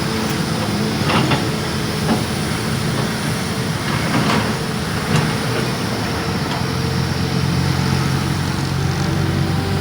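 A heavy vehicle or machine engine running steadily, with a few short knocks; its low hum grows steadier about seven seconds in.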